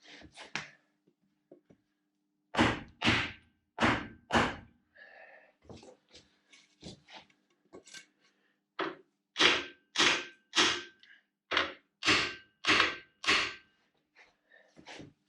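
Soft-faced hammer knocking through a wooden block on parts of a dismantled R53 W11 engine. Four heavy blows, then lighter taps, then a run of about eight heavy blows, under two a second, some leaving a short ring.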